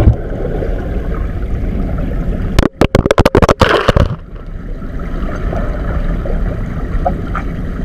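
Muffled underwater rushing and bubbling of churned canyon-pool water. About two and a half seconds in comes a rapid run of loud, sharp knocks lasting about a second and a half, and then the steady underwater rush returns.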